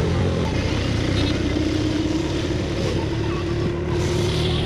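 Auto-rickshaw engine running as it drives along, heard from inside the cabin: a steady low drone with a whine that comes in about a second in and slowly rises in pitch.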